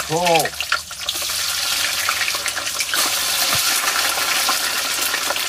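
Hot oil in a deep frying pan sizzling and bubbling hard as frozen crinkle-cut chips are tipped in from a bag, the sizzle growing louder from about halfway through.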